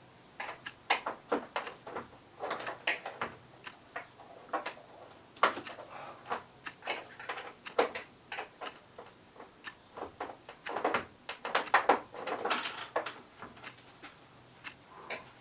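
Irregular clicks and knocks of hands working on a uPVC window sash and its metal hinge fittings, some in quick clusters.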